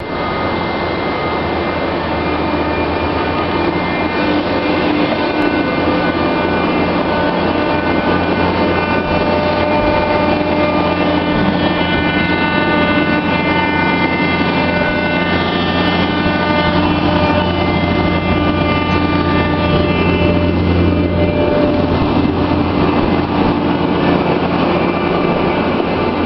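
IPS baler machinery running with a steady mechanical hum and whine. Its tone shifts about 21 seconds in.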